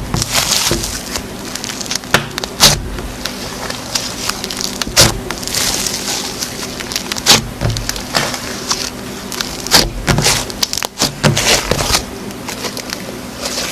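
Slime being squished and worked by hand, with irregular sharp clicking pops every second or so and crackling between them.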